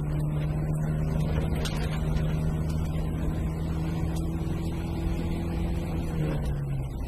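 VW Golf rally car engine running at steady high revs at speed on a gravel stage, with gravel clicking against the car; the revs drop slightly about six seconds in.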